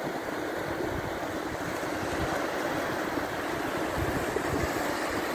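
Surf breaking and washing in over a shallow beach, a steady rush, with wind rumbling on the microphone.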